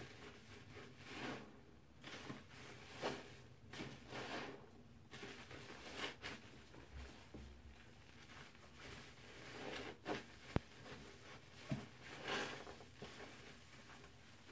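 A stack of soapy kitchen sponges with scouring layers squeezed together by hand in foamy water: wet squelching in irregular squeezes, with a couple of short sharp clicks about two-thirds of the way through.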